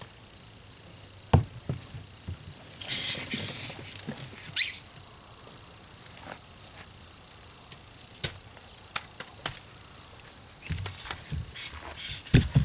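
Insects trilling steadily in high, pulsing tones, with a few scattered sharp knocks and clicks and a brief rustle about three seconds in.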